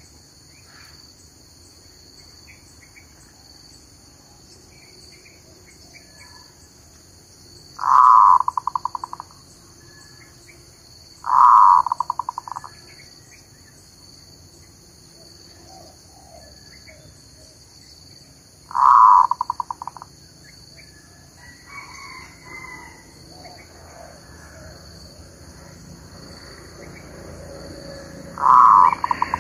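Zebra dove cooing: four loud calls, each a quick string of staccato notes that fades over about a second and a half. A steady high insect drone and faint chirps of other birds run underneath.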